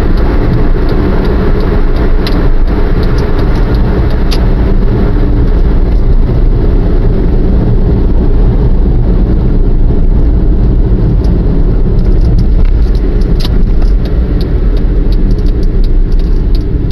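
Steady low rumble of a car's engine and tyres heard from inside the cabin while driving, with a few light clicks.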